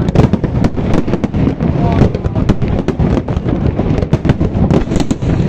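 Fireworks display going off: a dense, irregular run of bangs and crackles, with people's voices underneath.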